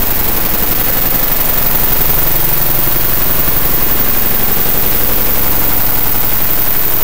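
Harsh noise music made by reading image data as audio: a loud, unbroken mass of hiss and crackle with a fast, rough flutter in the low end.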